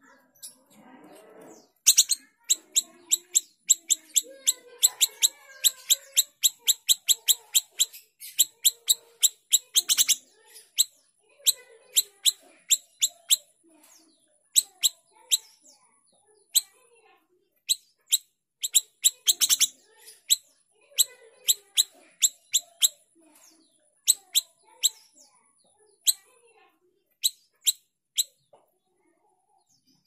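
Small siri-siri songbird singing in long runs of sharp, short, high chips, several a second, broken by brief pauses.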